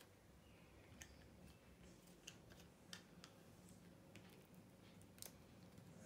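Near silence: quiet room tone with a few faint, scattered clicks.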